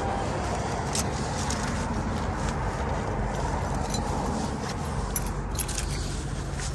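A bunch of keys jangling in a hand, with a few small metallic clicks, over a steady low rumble of vehicles.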